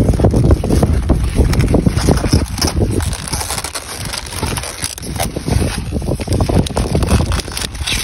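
Wind buffeting the phone's microphone: a loud, gusty low rumble that eases off around the middle and then picks up again, with leaves rustling as a hand moves among the cabbage stalks.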